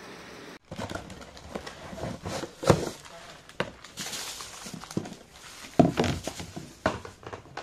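Hard plastic casseroles and their lids clicking and knocking as they are handled on a table, with the crinkle of a plastic wrapper. The loudest knock comes about two and a half seconds in.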